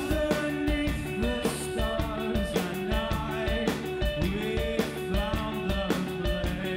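Rock band playing live in a math-rock style: electric guitars pick busy, repeating note patterns, some of them sliding, over a driving drum-kit beat.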